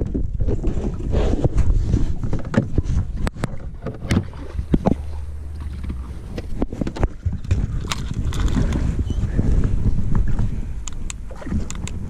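Wind rumbling on the microphone, with scattered clicks, knocks and rustles of gear being handled in a small boat.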